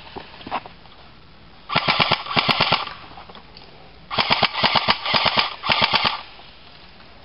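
Airsoft gun firing rapid automatic bursts: one group of fast clicking shots about two seconds in, then a longer string of bursts about four seconds in.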